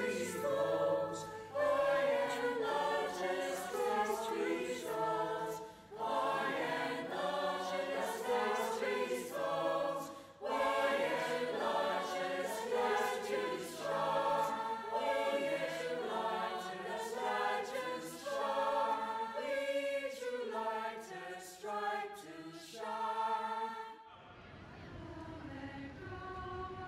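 A small mixed choir of men and women singing together, with a few short breaths between phrases. The singing stops about three seconds before the end, leaving faint room noise.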